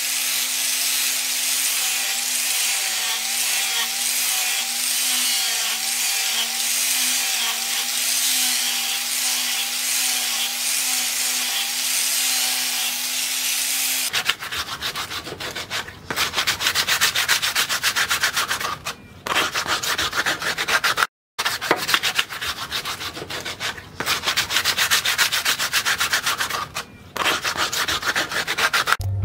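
An angle grinder with a sanding disc runs against a steel machete blade, its motor a steady tone that wavers slightly. About halfway through it gives way to rapid back-and-forth strokes of sandpaper rubbed by hand over wood, broken by a few short pauses.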